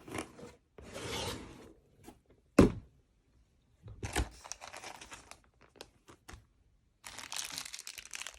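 Packaging handled while a Boss Audio BAB10 subwoofer is unboxed: rustling noise in several stretches, with one sharp thump about two and a half seconds in.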